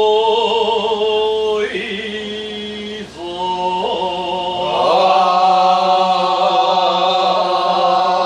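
Men singing a kiyari-uta, the traditional chant of a tezutsu hand-held fireworks crew, in long held, wavering notes. One phrase is carried by a single voice. After a short break a little past three seconds, a fuller group of voices comes in, louder toward the end.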